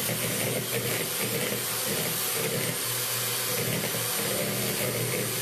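Electric hand mixer running steadily, its beaters whipping powdered chantilly mix with ice-cold milk in a plastic bowl as it turns into whipped cream.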